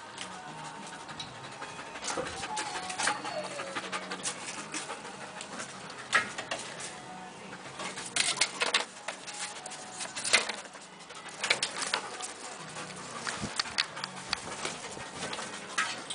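A service dog panting as it scrabbles up and noses through a heap of wooden boards and metal junk, searching for a bringsel hidden up high. Its paws and body knock the boards and metal against each other in sharp clatters, several of them loudest in the middle.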